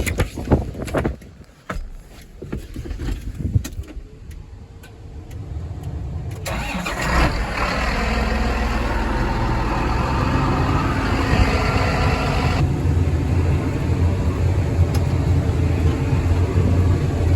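Clicks and knocks, then a John Deere 8310 tractor's diesel engine starts about six seconds in and settles into a steady run.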